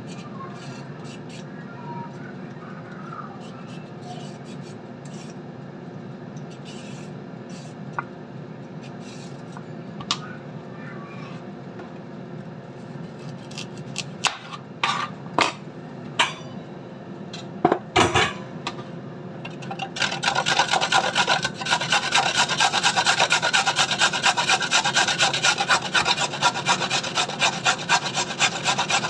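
A carrot being grated on a stainless-steel box grater: fast, even rasping strokes that start about two-thirds of the way in and are the loudest sound. Before that come a few sharp knife taps on a plastic chopping board.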